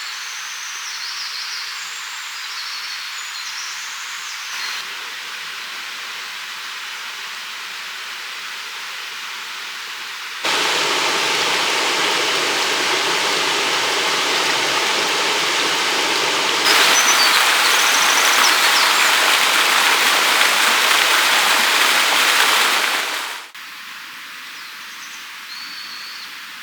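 A mountain stream's running water rushes steadily, with a few bird chirps in the first few seconds. The rush jumps suddenly louder and fuller about ten seconds in, louder again a few seconds later, then drops back abruptly near the end.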